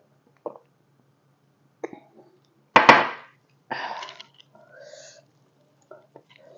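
A woman coughs twice, about three and four seconds in, the first cough the louder, with a few soft mouth and eating clicks before it.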